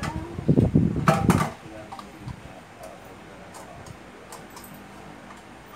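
Dishes and utensils knocking and clinking in a kitchen sink as they are washed by hand: a few heavy bumps and sharp knocks in the first second and a half, then only light, scattered clicks.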